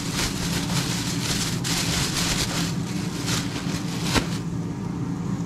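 Clear plastic bag rustling and crinkling as it is folded closed around hot roasted chiles so they steam and their skins loosen, with a sharp click about four seconds in. A steady low hum runs underneath.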